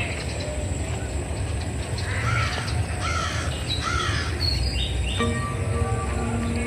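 A bird giving three harsh, arched calls about two to four seconds in, over a low rumble. Background music comes in about five seconds in.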